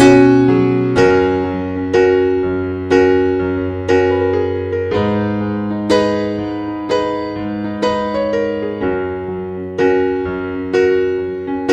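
Background music: a soft electric piano playing slow chords, a new chord struck about once a second and left to fade.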